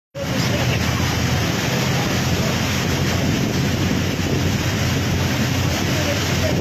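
Steady rushing of wind and heavy rain, with wind buffeting the microphone.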